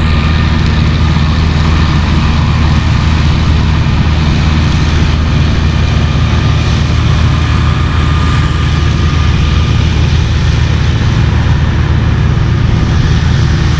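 An engine running steadily at a constant speed, loud, with a low hum that does not change.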